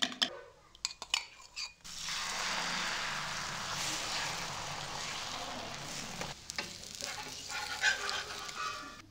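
A spoon clinks rapidly against a small steel cup as egg is beaten. From about two seconds in, beaten egg sizzles steadily in a hot frying pan on a flatbread for an egg roll. A few more clinks come over the sizzle near the end.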